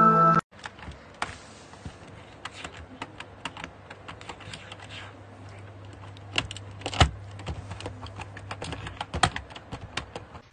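Computer keyboard keys clicking irregularly as a cat's head presses and shifts on them, with a few louder clacks around seven and nine seconds in, over a low steady hum.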